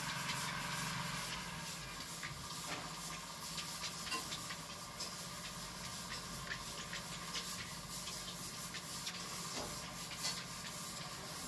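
Marker being wiped off a whiteboard by hand: a run of short, irregular rubbing strokes over a steady background hiss and low hum.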